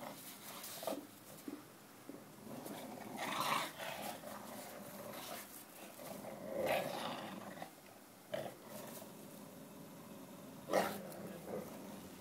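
Two dogs, an English bulldog and a Bouvier des Flandres, growling in play as they tug on a tennis ball, in irregular rough bursts with a few louder peaks.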